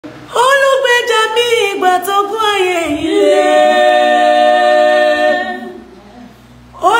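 A woman singing a gospel song a cappella, with no instruments. Short, bending phrases lead into one long held note, which fades away shortly before the next line begins near the end.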